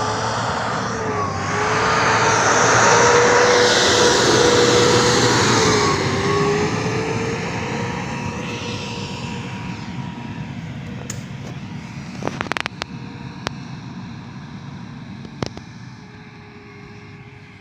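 Motor grader's diesel engine running under load with a wavering whine, loudest a few seconds in and then fading steadily as the machine moves away. A few sharp clicks come near the end.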